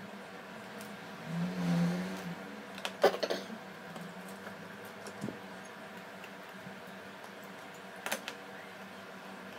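Small metal repair tools, tweezers and a precision screwdriver, clicking and tapping as they are handled and set down on a cutting mat, loudest in a quick cluster of clicks about three seconds in and again briefly near the end. A steady low hum runs underneath, with a short low hum about a second and a half in.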